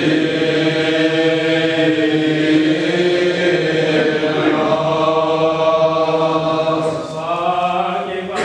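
Eastern Orthodox liturgical chant sung in long held notes, the melody moving to a new pitch about halfway through and the singing easing off near the end.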